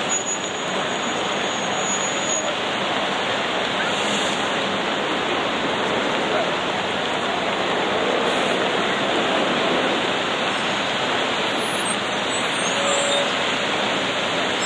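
Steady, even din of a busy city square, traffic and crowd noise with some indistinct chatter.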